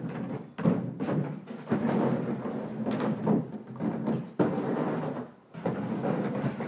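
Hard plastic kiddie pool being shoved and dragged across concrete by a dog: irregular hollow thumps and rumbling scrapes, with sharp bangs about half a second in, near two seconds and past the four-second mark.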